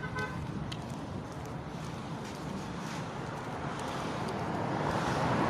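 Street traffic noise: vehicles running past, with some wind on the microphone, growing louder near the end.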